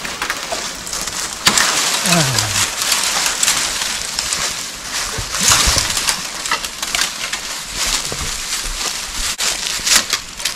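Footsteps crunching through dry leaf litter and grass, with dry twigs and brush crackling and snapping irregularly as people push through the undergrowth.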